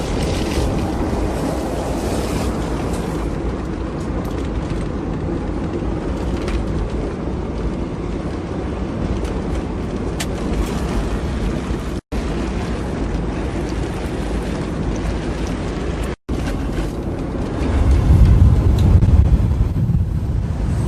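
Off-road vehicle driving, its engine running steadily under heavy wind noise on the microphone, with a louder low rumble near the end. The sound cuts out briefly twice.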